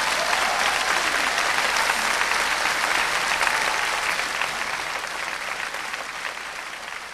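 Theatre audience applauding after the number ends: dense clapping that swells at once and slowly fades toward the end.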